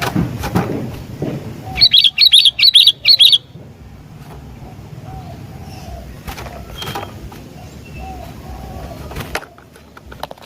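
Sooty-headed bulbul (kutilang) calling: a quick run of about six loud, sharp chirps about two seconds in, over fainter low bird calls and a few clicks.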